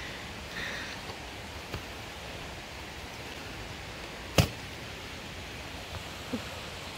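A hiker scuffing and rustling on a steep dirt trail while handling a phone, over a steady hiss, with one sharp knock about four and a half seconds in.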